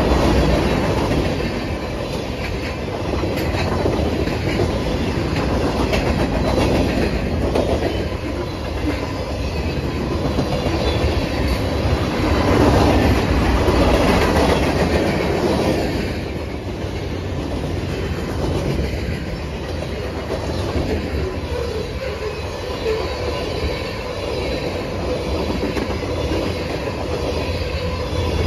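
Freight train cars rolling past at close range: a steady rumble of steel wheels on the rails, a little louder about halfway through.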